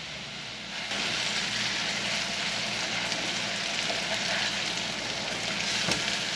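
Catfish fillets frying in butter in a nonstick pan: a steady sizzle that grows louder about a second in as a spatula is worked under the fillets to turn them, with a light knock near the end.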